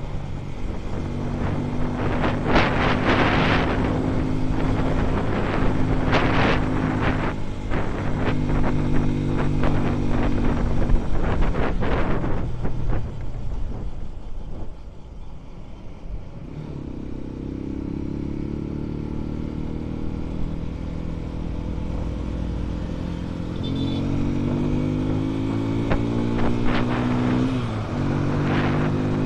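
Dayun Flasher 200 motorcycle engine running under way, heard from the rider's seat with wind gusting on the microphone. The engine note eases off about halfway through, then climbs steadily in pitch as the bike accelerates, dipping briefly near the end at a gear change before rising again.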